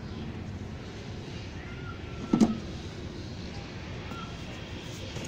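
Auto rickshaw engine running with a steady low rumble, with a sharp knock about two and a half seconds in and a louder one at the very end.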